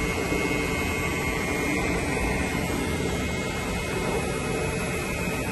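Battery-powered refrigerant vacuum pump running steadily with a constant hum, evacuating a newly installed evaporator coil and its line set.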